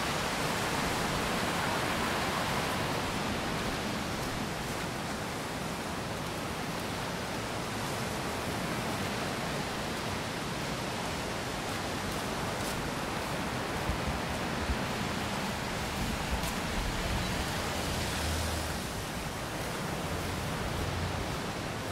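Steady, even rushing outdoor noise with no clear single source, with a few faint clicks around the middle and some low rumbling swells near the end.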